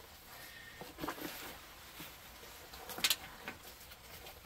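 Faint rustling and handling noise of a large military rucksack being shouldered, fabric and straps shifting, with a few short knocks and a sharper click about three seconds in.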